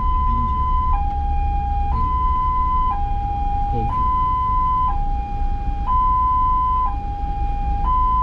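Ambulance two-tone hi-lo siren, switching between a higher and a lower tone about once a second, over a steady low vehicle rumble.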